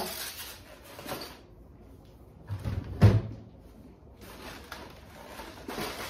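Light clatter of plastic egg cartons and items being handled at an open refrigerator, with one loud, dull knock about three seconds in and a few small clicks.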